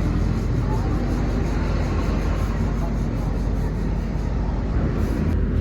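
An engine running steadily with a continuous low hum.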